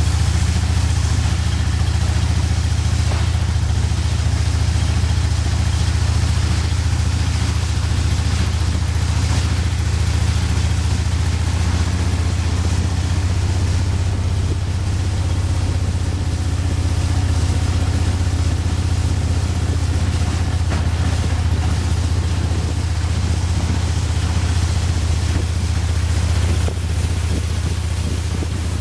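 Small riverboat's engine running steadily at cruising speed: a loud low drone, with an even hiss of water and wind over it. The drone eases off slightly near the end.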